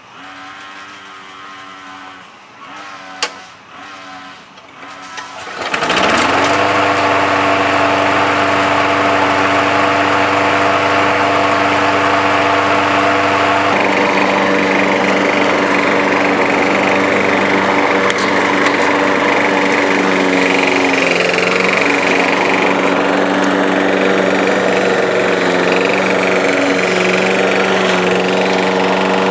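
Craftsman push mower's engine starting about six seconds in, after quieter handling sounds and a sharp click, then running steadily at speed; its tone changes a little about fourteen seconds in. It runs after a new fuel line, a cleaned carburetor and a new air filter.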